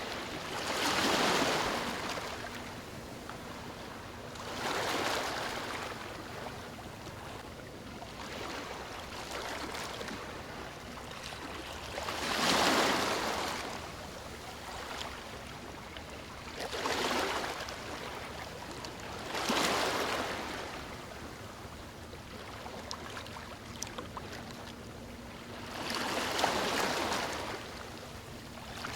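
Sea waves breaking on a shore: six waves surge in and wash out at uneven intervals a few seconds apart, over a steady hiss of surf between them.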